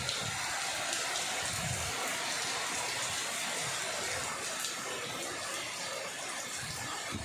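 Heavy rain falling, a steady even hiss of water.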